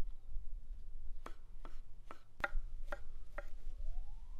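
Knife chopping food on a cutting board: six sharp chops, about two a second.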